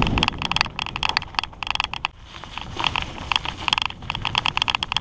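Hardtail mountain bike clattering over rough dirt singletrack, with rapid irregular rattles and knocks from the bike. A rush of wind on the microphone fades just after the start, and the rattling eases briefly about two seconds in.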